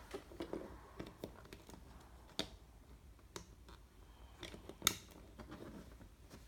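Light clicks and taps of Lego plastic being handled and pressed together as the minifigure is fitted back into the small boat. Two sharper clicks stand out, about two and a half and five seconds in.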